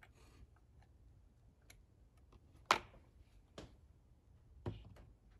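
3D-printed plastic parts of a model turboexpander casing clicking and knocking as they are handled and fitted together: light clicks, one sharp knock about two and a half seconds in, and two softer knocks later.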